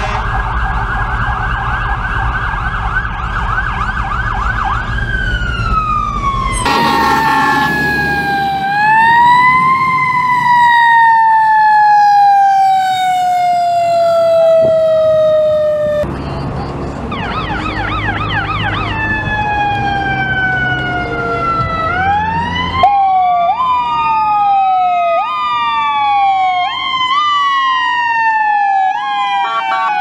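Emergency vehicle sirens from responding fire apparatus and an ambulance. A fast electronic yelp slides into a falling wail, then a siren winds up and slowly coasts down in pitch along with blasts of low air horns. Later, overlapping sirens sweep up and down, some in quick repeated rising whoops.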